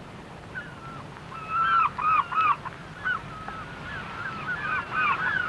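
A flock of geese honking, many short calls overlapping, loudest about two seconds in, over a faint low steady hum.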